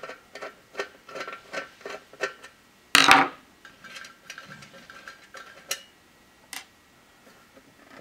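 Phillips screwdriver backing the center screw out of a metal exercise-wheel hub: a run of small, irregular metallic clicks and ticks. One sharp, louder knock about three seconds in, then a few light clicks.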